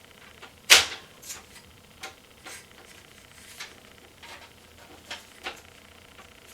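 Scattered clicks and light knocks of a 200mm plastic case fan and its screws being handled and fitted into a PC case, with one sharp click about three-quarters of a second in the loudest.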